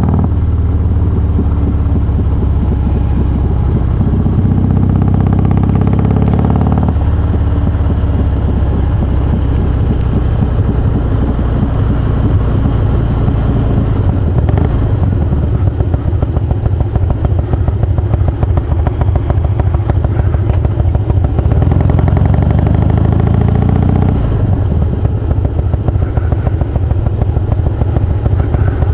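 Harley-Davidson Twin Cam 88 air-cooled V-twin, fitted with Feuling 525 cams and hydraulic cam chain tensioners, running steadily at idle with an even string of firing pulses. Its note changes abruptly about seven seconds in and again near the end.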